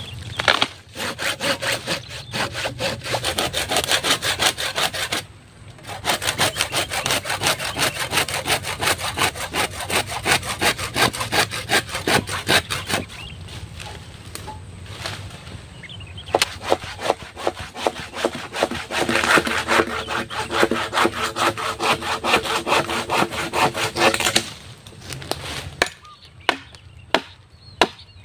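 A hand saw cutting through a thick green bamboo culm in quick back-and-forth strokes, in three long bouts with short pauses between them. Near the end, a few separate sharp knocks of a machete striking the bamboo.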